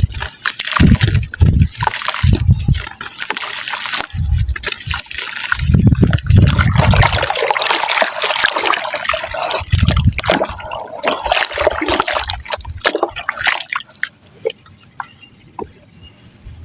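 Soft wet mud crumbling and dropping into water: crackly, crunchy crumbling with splashing and repeated low plops. It tapers off to a few faint ticks about 14 seconds in.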